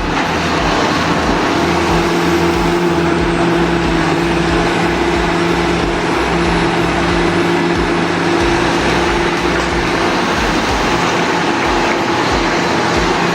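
A heavy machine's diesel engine running steadily, a continuous hum holding two steady tones over mechanical noise.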